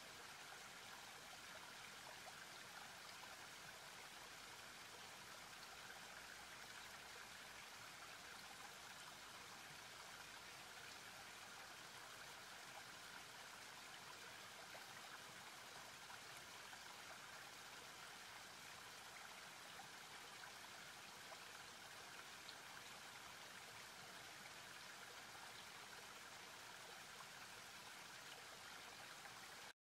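Faint, steady rush of turbulent river water churning and foaming.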